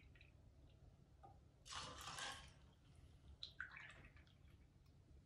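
Pineapple juice poured from a small can into a steel jigger and over crushed ice: faint trickling in two short spells, one about two seconds in and another shortly before four seconds.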